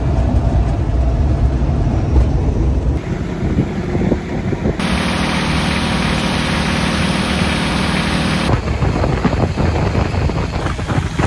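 Engine noise on a ride. A heavy low rumble in an open-sided vehicle gives way to a long-tail boat's exposed engine running steadily at speed. Near the end wind buffets the microphone.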